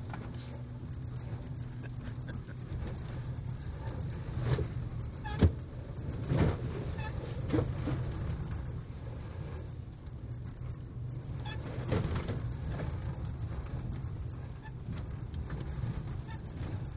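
Car heard from inside the cabin while driving on a muddy, rutted dirt road: a steady low engine and tyre rumble. Occasional sharp knocks and thumps come through from the underbody, the loudest about five seconds in.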